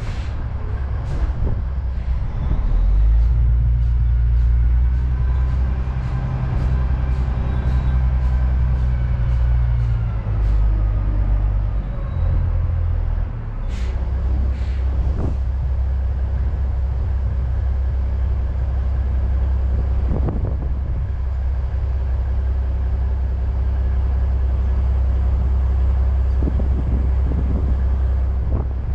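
Heavy dump truck's diesel engine running loud and low, its note changing in steps as the truck moves through the first dozen seconds, then holding steady once the truck stops. A few sharp clicks and knocks sound over it.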